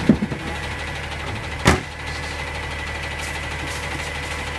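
Garbage truck engine running steadily, with a few sharp knocks right at the start and one loud knock about a second and a half in as wheeled plastic carts are pushed against the truck's cart tipper.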